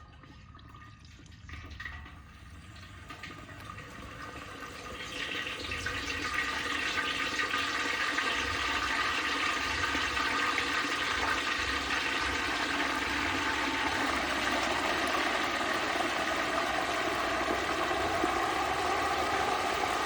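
Hot frying oil bubbling and sizzling as a whole turkey is lowered into a turkey fryer, building from faint to a loud, steady rush over the first several seconds as more of the bird goes under.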